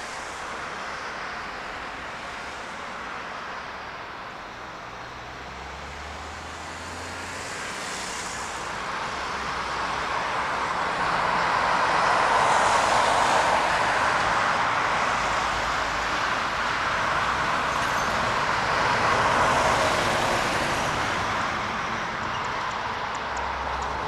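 Jet noise from an Airbus A380's four engines passing by. It is a broad rushing sound that builds to its loudest about halfway through, holds, then slowly fades.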